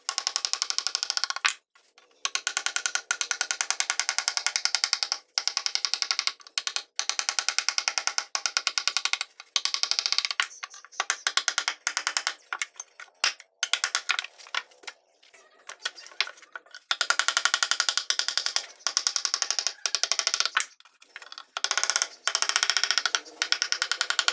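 Steel ball-peen hammer tapping a wooden-handled carving chisel into a wooden panel in quick light strokes, several a second. The tapping comes in runs of a few seconds broken by short pauses.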